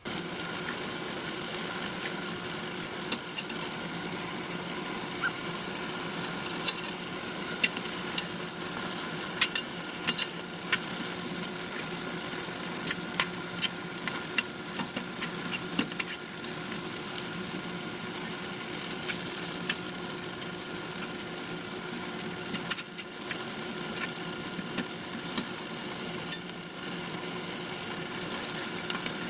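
Kitchen utensils clicking and scraping against cookware as cooked smoked turkey meat is pulled off the bone. The sharp clicks come irregularly over a steady cooking hiss and hum.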